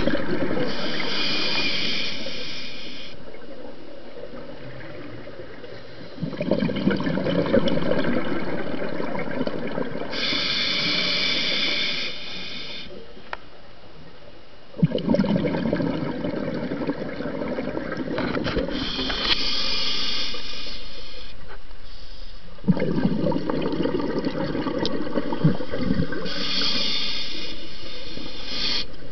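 Underwater water noise in a repeating cycle about every eight to nine seconds: a few seconds of higher hissing, then several seconds of lower bubbling rumble with small clicks.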